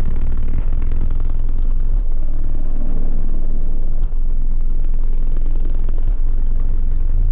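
Very loud sub-bass from a car audio system of six Sundown ZV5 18-inch subwoofers playing a bass-heavy rap beat, the deep bass notes changing every couple of seconds over a constant buzzing rattle.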